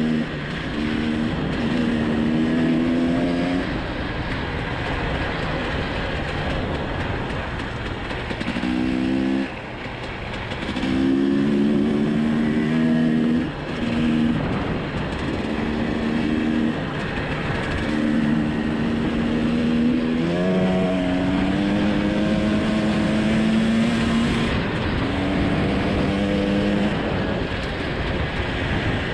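Dirt bike engine running under way, its revs rising and falling as the throttle is rolled on and off through gear changes, with brief drops in power about nine and thirteen seconds in. A steady rush of wind and track noise runs beneath it.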